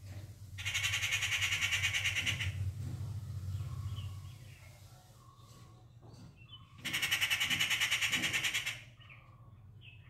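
Rufous treepie giving two harsh, rapidly pulsing rattling calls of about two seconds each, the first just after the start and the second about seven seconds in, with faint chirps between them.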